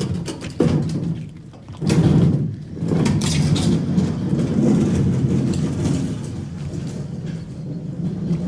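A digger's engine running under load, with clattering knocks near the start and about two seconds in, as it works on groundworks.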